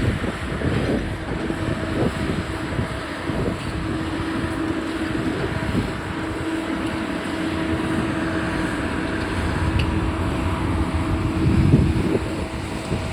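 Demolition machinery running on a noisy site, a steady droning tone holding through most of it over a low rumble.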